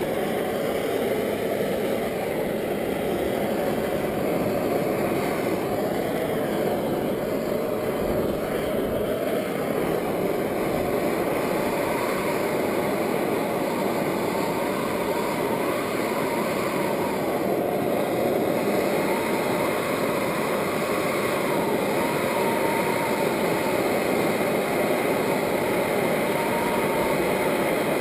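Plumber's propane torch flame burning steadily, a continuous rushing hiss with a faint wavering whistle in it, heating a copper pipe joint for soldering.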